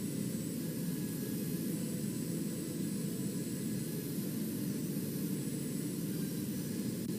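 Steady radio static from a weather radio receiver on dead air: an even hiss and rush with no voice or alert tones.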